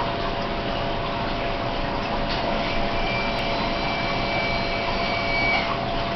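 Steady rushing of an aquarium's water pump and circulating water, with a constant low hum. A faint high whine joins about two and a half seconds in and stops shortly before the end.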